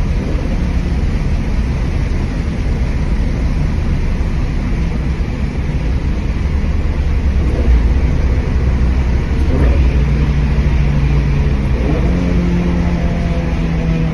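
Toyota GR86's 2.4-litre flat-four running through an XForce Varex 2.5-inch valved cat-back exhaust, heard in a tunnel. It is a continuous deep rumble that settles into a steady droning engine note over the last few seconds.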